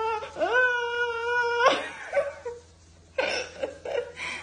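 Cat yowling: one long drawn-out meow that rises at the start, then holds one pitch for over a second before breaking off. A few short, rougher noises follow.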